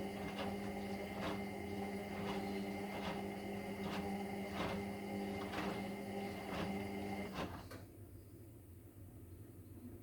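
Indesit EWD71452 washing machine's noisy brushed Nidec motor turning the drum in a slow wash tumble: a steady motor hum with regular ticks about twice a second. About seven and a half seconds in, the motor cuts out for the pause between tumbles.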